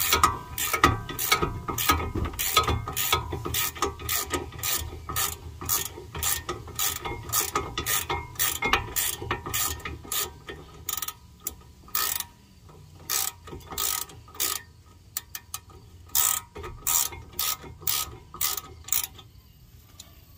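Ratchet wrench clicking in quick runs as an 18 mm socket backs out the front brake caliper bracket bolts. The clicks come thick and fast at first, thin out about halfway through, and stop near the end.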